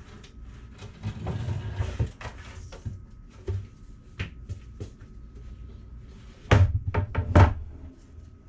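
Rustling and clatter, then three sharp wooden knocks about half a second apart near the end: a wooden cutting board being handled and set down on a stone countertop.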